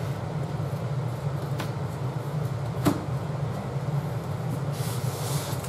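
Laminate floor plank being slid across the floor and pressed into place by hand: a light click, then a sharper knock about three seconds in, and a brief scraping swish near the end, over a steady low hum.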